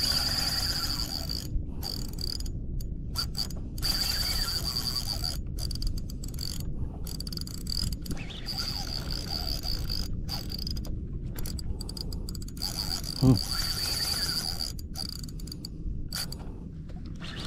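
Spinning reel, the Daido Spectre PS 4000, being cranked steadily, its gears and handle whirring and clicking as line is wound in under load on a bent rod. A single thump about three-quarters of the way through is the loudest sound.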